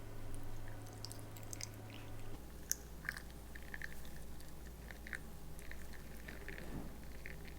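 Someone chewing and biting food, with small irregular crunchy clicks over a faint steady low hum.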